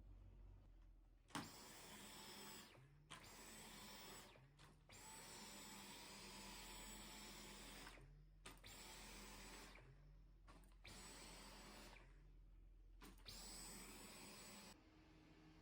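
A small electric motor switched on and off in about seven short runs of one to three seconds each. Each run rises briefly in pitch as it starts, then holds a steady whine.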